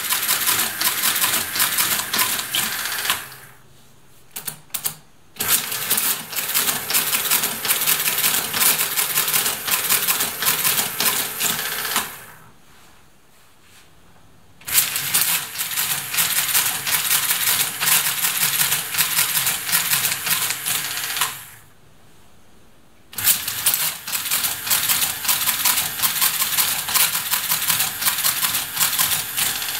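SCM Hamann Automatic 505 electric mechanical calculator working through a multiplication, its motor-driven gears and mechanism clattering rapidly. The runs of clatter last several seconds each and stop three times for about two seconds before the machine starts again.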